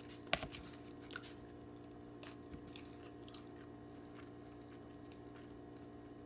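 Soft chewing and a few light clicks of a metal fork as kimchi is forked onto a sandwich; the sharpest click comes about a third of a second in. A steady low hum lies underneath.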